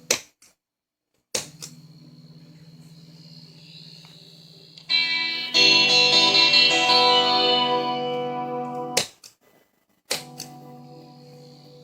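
Electric guitar through an amp, a held note ringing and then cut off and restored abruptly several times, with a sharp click at each change as the signal is switched through the ABY box. In the middle a louder distorted chord rings for about four seconds before it is cut off.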